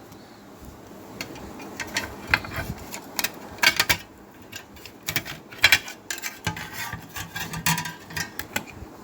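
Irregular clicks, taps and light rattles of hands taking apart a car graphic equalizer unit to lift out its circuit board.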